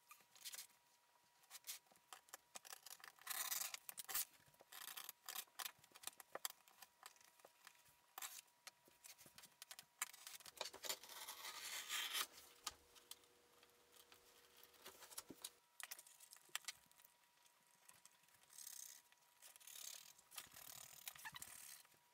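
Quiet scraping, rubbing and tapping of thick leather pieces and a hand tool against a cutting mat, in short irregular bursts with a few longer scrapes.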